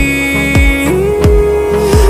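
Background pop music with a steady drum beat and a long held melody note that steps up in pitch about halfway through.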